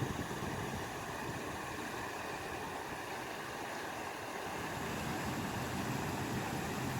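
Flowing stream water, a steady even rush.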